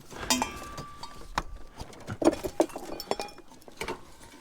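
Metal and glass junk clinking and knocking as it is shifted around: about half a dozen separate hits, some ringing briefly.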